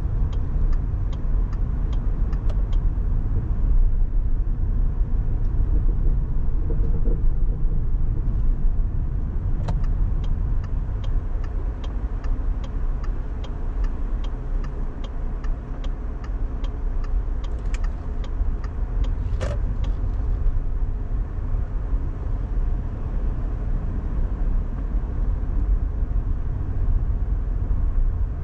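Steady low rumble of road and engine noise from a car being driven. Twice there is a run of light, evenly spaced ticking, about two or three ticks a second: briefly near the start, then for about nine seconds in the middle. A single sharper click comes about two-thirds of the way through.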